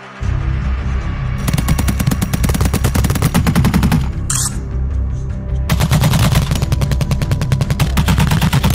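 Rapid automatic fire from tripod-mounted machine guns in long strings of shots, over a loud soundtrack with a deep bass. The firing breaks off briefly about four seconds in, with a short hiss, then resumes.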